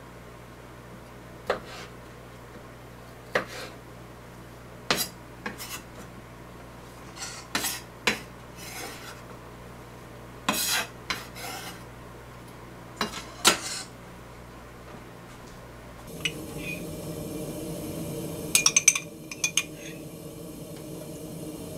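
Broad kitchen knife chopping sausage on a wooden cutting board, single sharp knocks every second or two. About sixteen seconds in, a steady low hum starts, and a metal spoon clinks several times against a frying pan and jar.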